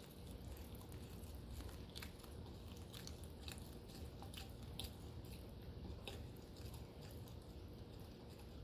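Faint, irregular small clicks and scrapes of a fork against a glass mixing bowl, stirring wet ingredients into flour.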